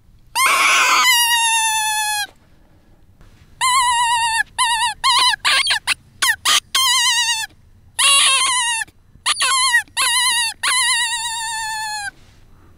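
Revehylsa predator call, a fox call made from a rifle cartridge, blown by mouth: a series of high, wavering, animal-like cries, the first opening with a rough rasp, some short and broken, the last long and falling in pitch. The calling is meant to lure foxes in.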